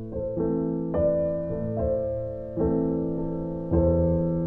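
Background piano music: slow notes and chords, each struck and left to fade.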